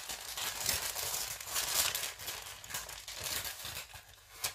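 Packaging crinkling and crackling as it is handled, in a dense run that stops near the end.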